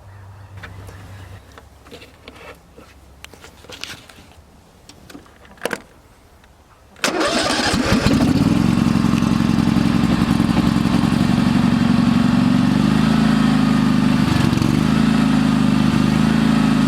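A few faint clicks and handling noises, then about seven seconds in a riding lawn mower's engine starts at once and runs steadily at idle: a cold start after about six months sitting with no fuel stabilizer in the gas.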